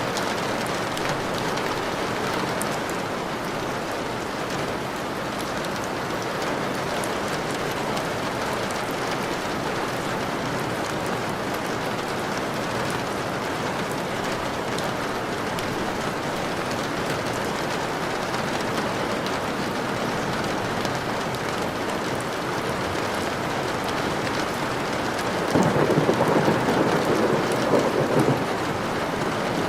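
Steady heavy rain falling, with a roll of thunder near the end.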